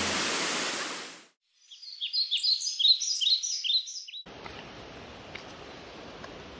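A rushing, water-like noise fades away, then a small bird gives a quick run of short, high, falling chirps for about two and a half seconds. Just after four seconds in, the steady hiss of a flowing stream starts abruptly.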